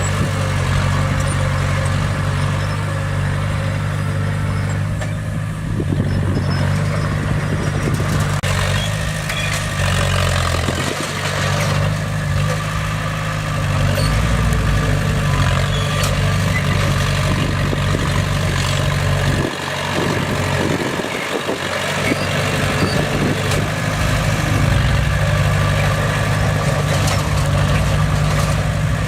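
A bulldozer's diesel engine running steadily with a deep, even rumble. About twenty seconds in, the low rumble drops away for a couple of seconds, then comes back.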